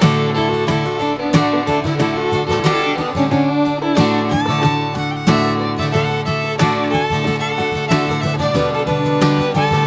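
Background music: fiddle over plucked guitar in a bluegrass/country style.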